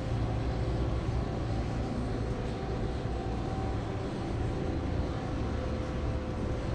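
Aircraft engine running steadily: an even drone over a low rumble, with two held humming tones.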